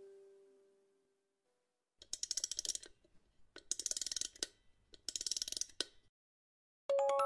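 A soft chiming note fades out, then three short bursts of rapid mechanical clicking, ratchet-like, each just under a second long. A new chiming note sounds near the end.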